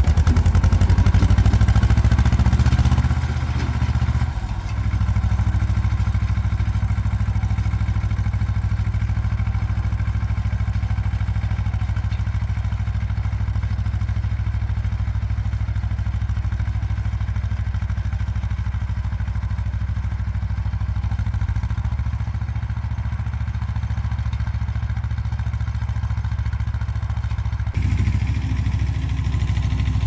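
Ursus C-330M tractor's two-cylinder diesel engine running steadily under load while pulling a plough. Loudest at first, it drops and settles a few seconds in as the tractor moves off down the field, then grows louder again near the end as it comes back.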